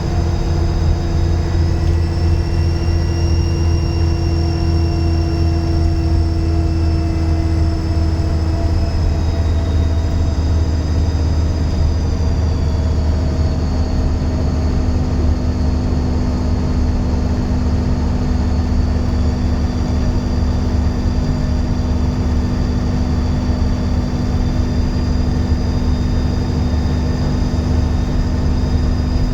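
Dennis Trident 2 double-decker bus running under way, a steady diesel engine drone under a loud, high turbocharger whistle that drifts slowly up and down in pitch with the engine's load.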